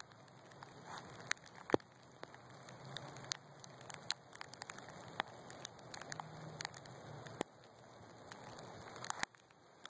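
Sleet and snow falling, pattering on surfaces with many irregular sharp ticks.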